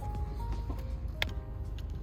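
Background music: held synth-like notes over a heavy, pulsing bass, with a sharp click about a second in.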